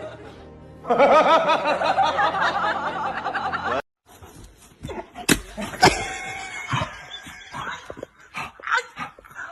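Music with laughter that cuts off suddenly about four seconds in, followed by scattered knocks and short vocal sounds.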